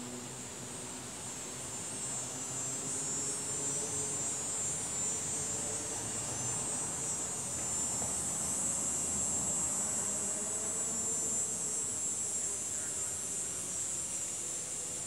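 Steady, high-pitched chorus of insects, swelling a little through the middle, over a faint low hum that slowly wavers in pitch.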